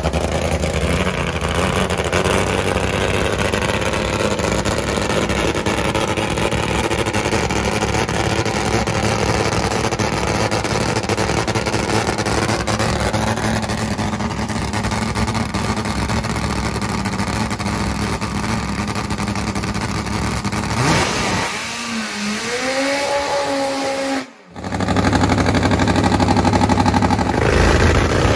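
Nitro-burning Top Fuel drag motorcycle engine running loud and rough after fire-up, with a short rise and fall in engine pitch about three-quarters of the way through. It then cuts abruptly to a second Top Fuel bike's engine running.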